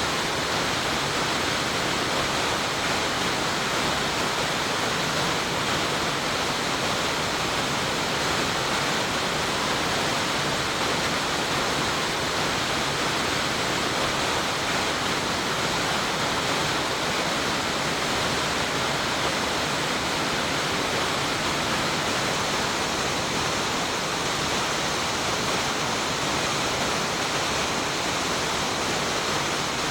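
Choshi Otaki, the wide, high-volume waterfall on the main stream of the Oirase, rushing steadily: an even, unbroken noise of falling water.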